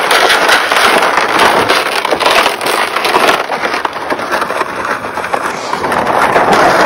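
Loaded plastic sleds dragged over crusty, icy snow, with crunching footsteps: a loud, continuous scraping crackle.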